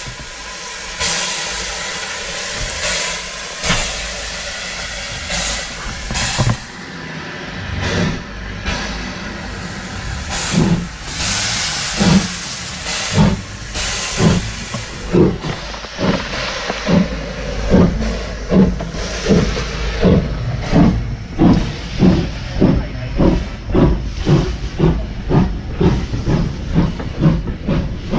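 Small steam tank locomotive pulling away from a standstill. Steam hisses for several seconds, then the exhaust chuffs begin about seven seconds in, slow at first and quickening steadily as it gathers speed.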